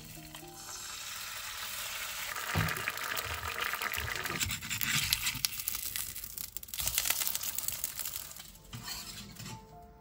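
An egg sizzles as it fries in a nonstick pan. A spatula scrapes and pushes it around the pan several times.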